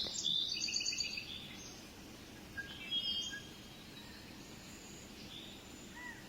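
Birdsong over a soft, steady ambient background: a quick run of high chirps and trills in the first second and a half, another short call about three seconds in, then only faint calls.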